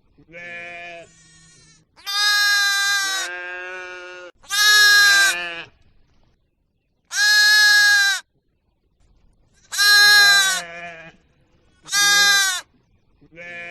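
Livestock bleating: five loud, drawn-out calls about two seconds apart, with quieter bleats from other animals in between.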